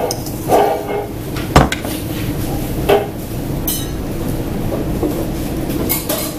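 Steady restaurant room hum with a few short clinks and knocks of dishes and cutlery on the table, the sharpest about one and a half seconds in.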